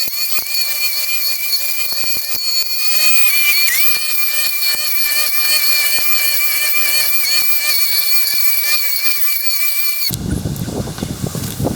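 Milwaukee M18 Fuel cordless strimmer with a metal brush-cutter blade running at a steady high-pitched whine, with rapid ticks of grass and debris striking the blade; the pitch dips briefly about three and a half seconds in. The whine cuts off suddenly about ten seconds in, giving way to a rustling, rushing noise.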